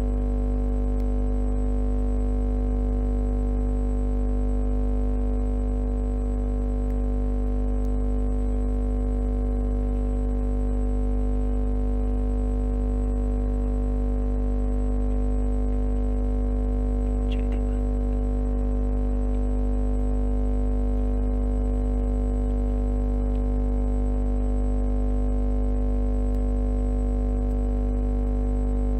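Steady electronic drone of many held tones that never changes in pitch or level, with a faint short chirp about 17 seconds in.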